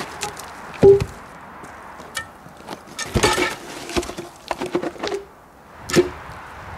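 Log rounds knocking and thumping as they are handled and set down, with the steel hook of a cant hook striking the wood: a heavy thump about a second in, a run of knocks from about three to five seconds, and another thump near six seconds. The louder hits carry a short ringing tone.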